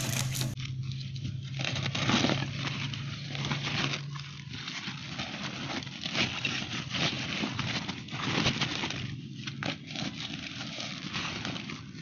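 Woven plastic sack rustling and crinkling as bamboo twigs are pushed into it, with the sticks scraping against the sack in uneven bursts.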